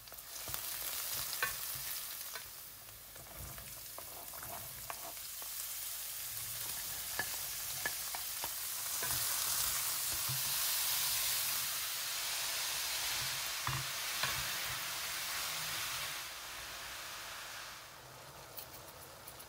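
Vegetables frying in oil in a stainless steel pot, stirred with a wooden spoon: a steady sizzle with a few sharp clicks. The sizzle is loudest in the middle and drops off near the end.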